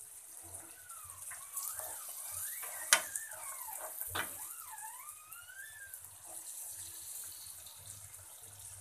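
Egg curry sizzling in a nonstick frying pan while a slotted steel spatula scrapes through it, cutting it into pieces, with a sharp clink of the spatula on the pan about three seconds in and another about a second later.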